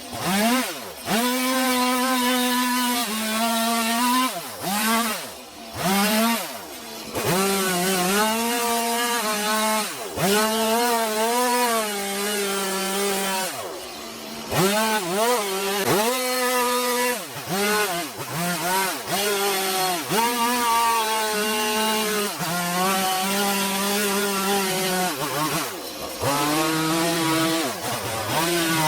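Chainsaw engine cutting wood in repeated bursts, the throttle opened and released again and again so the pitch climbs, holds through the cut and falls back toward idle between passes.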